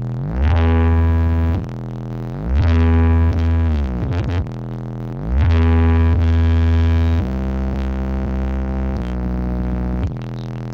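Loud electronic music from a large carnival sound system: deep bass notes held a second or two at a time, with synthesizer notes that glide in pitch between them.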